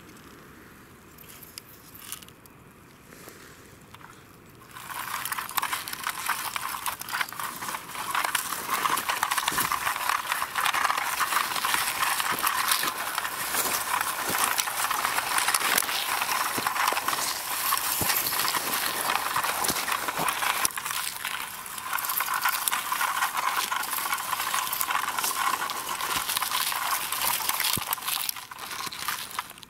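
Small toy car pushed by hand over dry forest litter, its wheels and body crackling and crunching through leaves and twigs. The crackling starts about five seconds in and runs on densely, with a brief lull about two-thirds of the way through.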